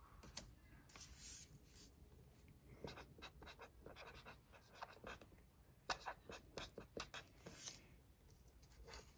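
A Namepen marker writing on sticker paper, faintly: a run of short, quick pen strokes, busiest from about three seconds in until near the end.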